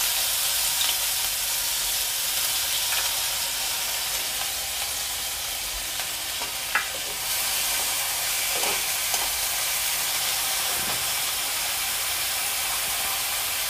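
Chopped onions frying in hot vegetable oil in a kadai: a steady sizzle, with a few light scrapes of a metal spatula against the pan.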